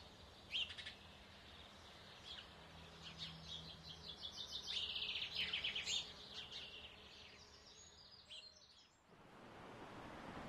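Faint birdsong: scattered high chirps and a fast trill, loudest about five seconds in. About nine seconds in it gives way abruptly to a steady rush of wind and surf.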